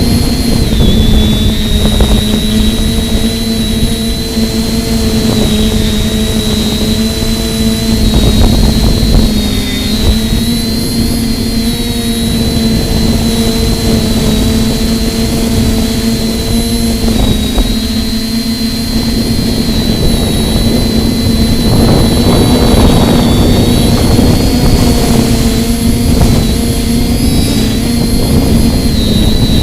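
TBS Discovery Lite quadcopter's electric motors and propellers humming at a steady pitch that wavers slightly as the craft holds against the wind, with a thin high whine above it. Wind rumbles on the microphone underneath.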